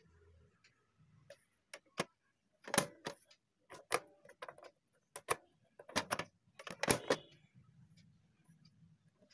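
Plastic clicks and clunks from a Funix FX-9909 VHS cassette rewinder as its buttons are pressed and its mechanism is worked, coming in irregular pairs and small groups. A faint low hum sets in near the end.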